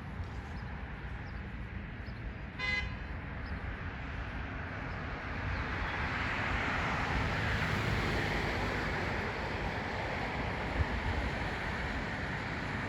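A short vehicle horn toot about three seconds in, over steady traffic noise. A car then passes, its road noise swelling and fading.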